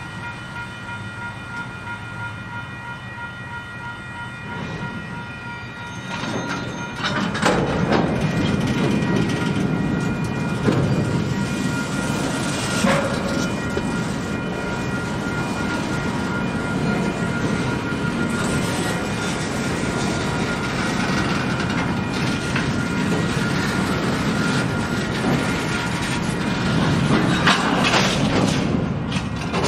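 Freight train rolling by: a faint steady whine at first, then from about seven seconds in a louder continuous rumble of the cars with sharp clicks of wheels over rail joints.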